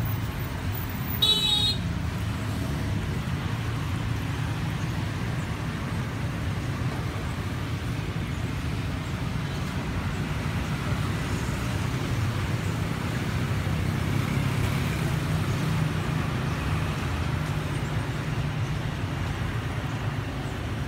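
Steady street traffic rumble, with one short, high-pitched horn toot a little over a second in.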